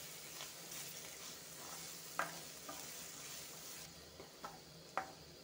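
Onion-tomato masala with freshly added powdered spices sizzling in oil in a kadai while a spatula stirs and scrapes it, with a few sharp clicks of the spatula against the pan, the loudest about two and five seconds in.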